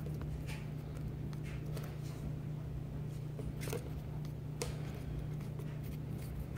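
A spoon stirring a thick glue-and-detergent slime mixture in a plastic bowl, with a few light clicks and scrapes against the bowl, over a steady low hum.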